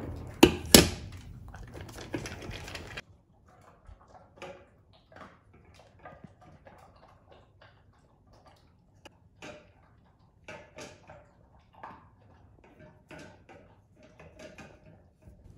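A stainless steel bowl of dry kibble clinks sharply a few times as it is set down in the first second, then a dog eats the kibble with soft, irregular crunches and small clinks against the metal bowl.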